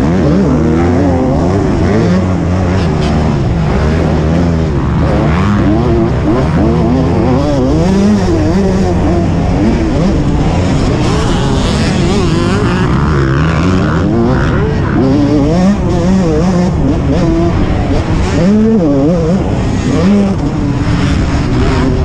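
1999 Yamaha YZ125 single-cylinder two-stroke motocross engine, ridden hard under racing load. Its pitch swings up and down constantly as the throttle is opened and closed.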